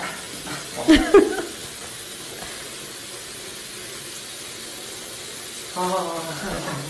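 Steady hiss of running bath water. Over it a cat being held for a bath gives two short yowls, a sharp bending one about a second in and a lower, drawn-out one near the end.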